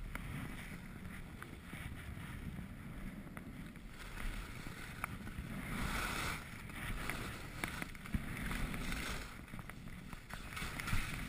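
Skis sliding and scraping over groomed snow, the hiss rising and falling with the turns, over steady wind buffeting an action camera's microphone.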